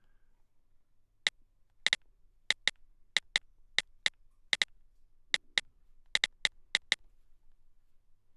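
iPad on-screen keyboard key clicks as a password is typed: about eighteen short, identical clicks at an uneven typing pace, some in quick pairs.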